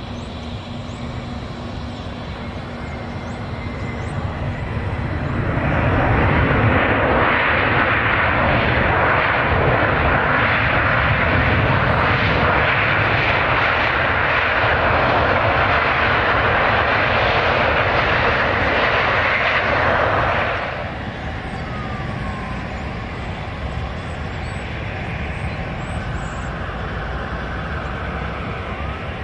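Boeing 737 jet engines on the landing rollout: a loud, steady rush that builds over a couple of seconds after touchdown and then cuts off abruptly about two-thirds of the way through. A quieter, steady aircraft drone follows.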